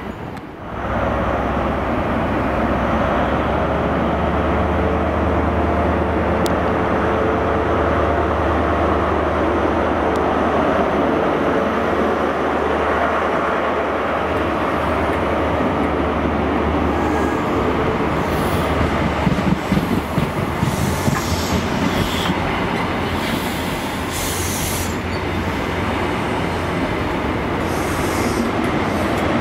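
Great Western Railway Class 43 HST power car 43187 passing close by, its diesel engine running with a steady low hum. From about halfway through, the Mark 3 coaches' wheels rumble and clatter over the track with brief scraping flares.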